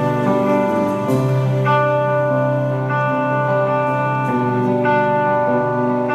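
Telecaster-style electric guitar played live, ringing, sustained chords struck one after another about every half second to second as a slow song begins.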